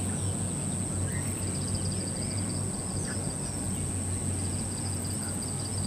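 Riverside outdoor ambience: insects chirping rapidly in two long spells, a steady high whine and a few short bird chirps over a steady low hum.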